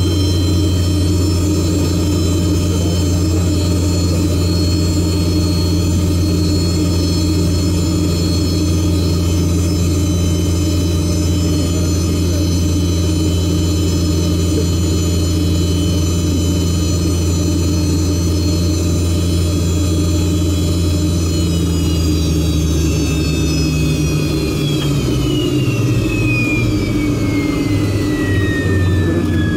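Yakovlev Yak-42D's Lotarev D-36 turbofan engines, heard inside the cabin, running steadily at idle with a whine of several tones over a low hum. About three-quarters of the way through, the whine and hum begin to fall steadily in pitch as the engines spool down, the sign of engine shutdown once the aircraft stops at the stand.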